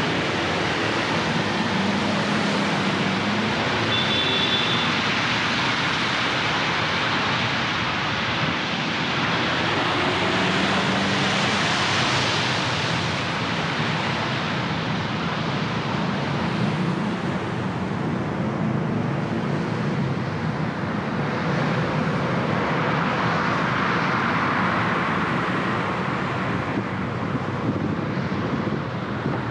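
City traffic heard from a car driving in Bangkok after heavy rain: engines running and a steady hiss of tyres on wet road, swelling as vehicles pass about twelve and twenty-four seconds in. A short high beep sounds about four seconds in.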